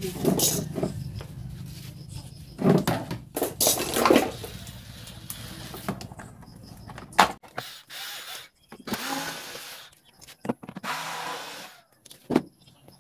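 Irregular clicks, knocks and scraping of hands and tools handling the plastic casing of a Skyworth 32-inch LED TV as it is opened up. A low hum underneath cuts off suddenly about seven seconds in.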